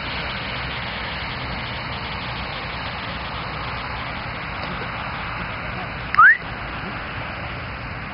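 Steady rushing background noise, with one short, loud rising squeal about six seconds in.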